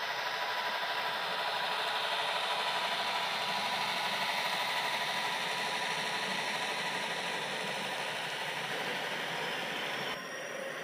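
HO scale model freight train running along the layout track: a steady whir and rattle of the model diesel locomotives' motors and the wheels on the rails. About ten seconds in the sound drops slightly and changes all at once.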